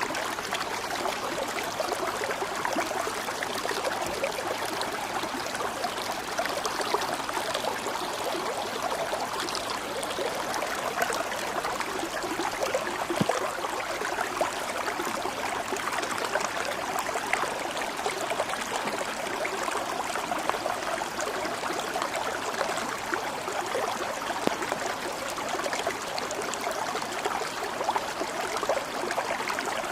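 Stream water flowing steadily, a continuous even babble with no change in level.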